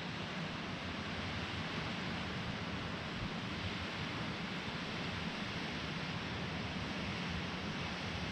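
Blizzard wind gusting through trees, a steady rushing noise that swells slightly in the first second.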